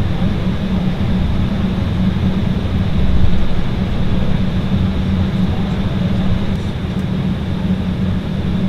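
Embraer 190 jet engines running at low power, heard from inside the cabin as a steady rumble with a low hum, swelling slightly about three seconds in, as the airliner taxis.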